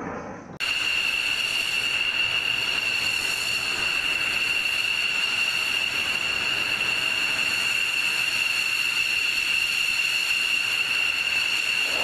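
F-16 fighter's jet engine running at ground idle: a steady high whine over a hiss, starting abruptly about half a second in.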